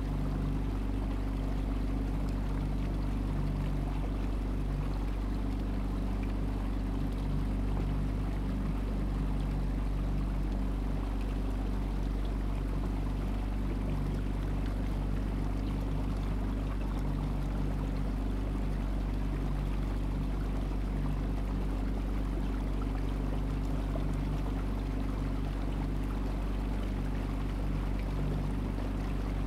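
Boat engine running steadily at cruising speed, heard on board, with water rushing along the hull.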